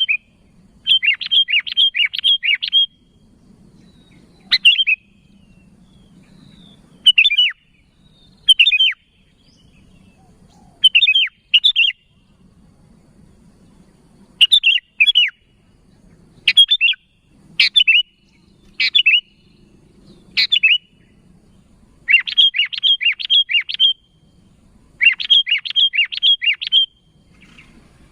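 Sooty-headed bulbul (kutilang) calling in short phrases of quick chirpy notes, repeated every second or two, with several longer runs of four or five notes in a row.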